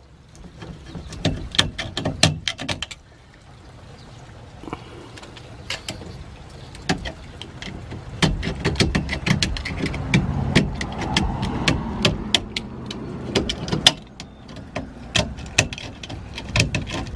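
Blade of a hand tool scraping and chipping at the inside of a plastic sewer pipe fitting, clearing out leftover pieces of old pipe. Quick, irregular scrapes and clicks, with a pause about three seconds in.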